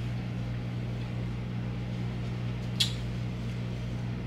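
Steady low hum of room tone, with one short sharp click a little under three seconds in.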